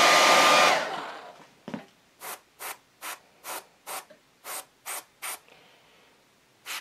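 Hair dryer blowing steadily, switched off about a second in and running down. Then an airbrush gives a string of about eight short hisses, two to three a second, as it is triggered in quick bursts to build up paint.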